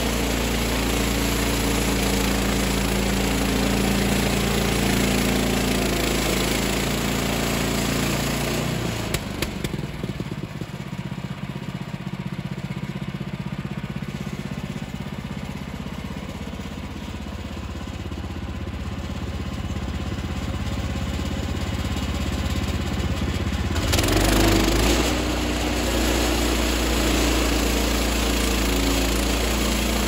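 Woodland Mills HM126 portable sawmill's gasoline engine running steadily at speed, then dropping to a lower, rougher idle about nine seconds in. Some fifteen seconds later it comes back up to speed with a brief surge and runs steadily again.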